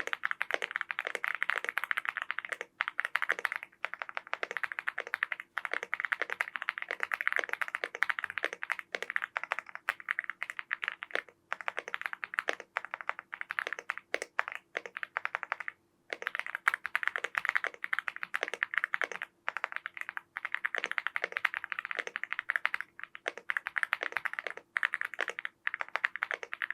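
Fast continuous typing on an AULA F75 gasket-mount mechanical keyboard with factory-lubed linear Reaper switches, a rapid run of key clacks with a few brief pauses.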